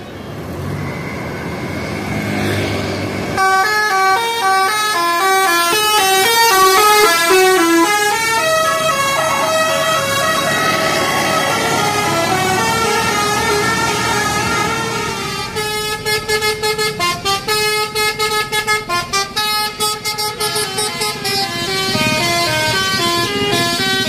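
Indonesian bus 'telolet basuri' musical horn playing a winding, flute-like melody of quick stepping notes. From about three and a half seconds in the tune runs continuously, breaks into a string of rapid short toots partway through, and returns to the melody near the end. Traffic noise comes first, before the horn starts.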